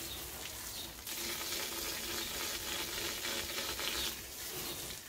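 Garden hose spraying water onto a paintbrush, rinsing the primer out of it: a steady hiss of spray that gets louder about a second in and eases off near the end.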